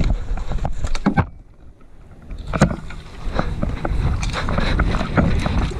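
Wind buffeting the microphone as a low rumble, with scattered sharp clicks and knocks of movement and handling gear; it drops away briefly about a second in, then returns.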